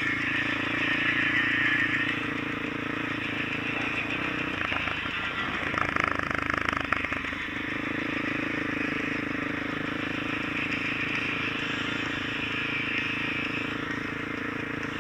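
Small off-road vehicle engine running steadily while riding on a dirt track, with wind and road hiss over it. For a few seconds near the middle it turns rougher, with a spell of rattling.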